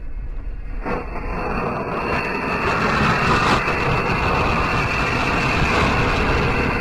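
Steady rumbling noise of a vehicle driving, growing gradually louder.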